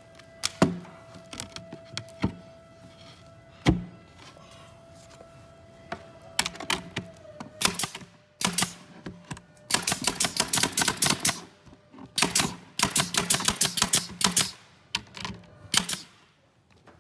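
Brad nailer driving 5/8-inch brads, fastening a cabinet end panel to the face frame: two single sharp shots, then from about six seconds on several runs of rapid sharp clicks.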